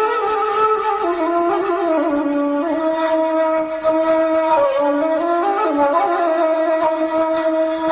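Music: a woodwind instrument playing a slow melody of long held notes, bending and sliding between pitches.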